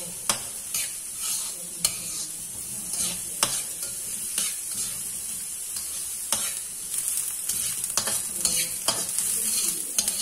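Chopped vegetables sizzling in hot oil in a wok, a steady hiss, with a spatula scraping and clicking against the pan every second or so as they are stirred.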